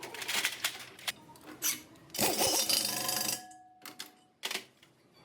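Metal workshop clatter from work on a clamped alloy wheel rim: sharp clicks and knocks, then about a second of harsh scraping noise that leaves a short metallic ring, and two more brief knocks near the end.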